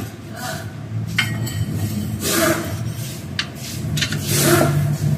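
Handling noise as the hand pump's hose and fitting are worked against the gearbox under the minibus: a couple of sharp clicks and three short rushes of noise, over a steady low hum.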